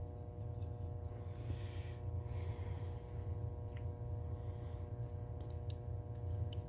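Steady low hum with a few faint, sharp clicks near the end as the open rotary telephone dial's small metal parts are handled.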